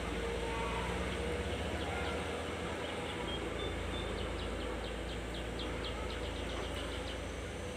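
Diesel engine of a loaded Volvo FL10 logging truck running steadily as it pulls away down a dirt track. A quick run of high chirps comes in partway through.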